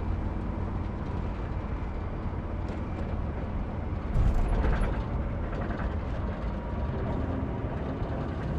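A vehicle driving, with steady low engine and road rumble and a short louder rush about four seconds in.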